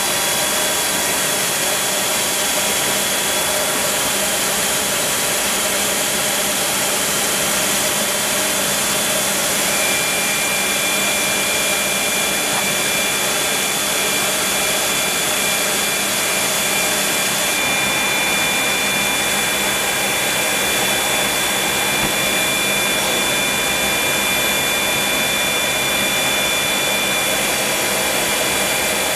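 Steady high whine and rush of an AH-64E Apache helicopter's gas turbine running on the ground. A second high steady tone joins about ten seconds in.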